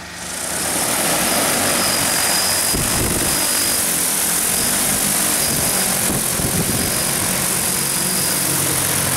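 DJI Agras T40 crop-spraying drone's rotors spinning up for take-off. The propeller noise rises sharply in the first second, then stays loud and steady.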